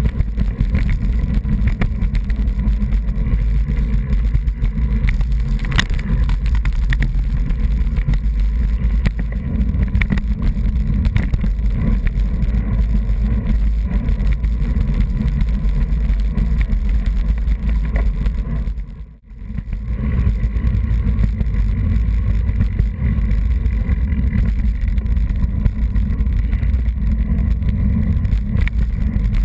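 Steady low rumble of wind buffeting a bicycle-mounted camera's microphone while riding in a group on a road bike, mixed with tyre and road rumble and a few light knocks from bumps. It drops out briefly about two-thirds of the way through.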